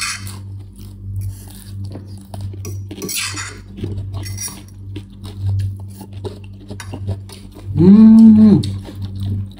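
Forks clinking and scraping against bowls as noodles are eaten, as many small clicks. A little before the end comes a loud drawn-out vocal sound from one of the eaters.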